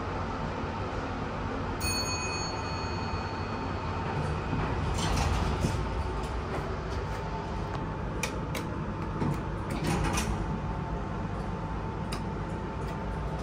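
1992 Fujitec lift car: a short arrival chime about two seconds in, then the car door sliding open, over the steady hum of the lift. Later come a few sharp clicks of the car's buttons being pressed, the last on the door-close button near the end.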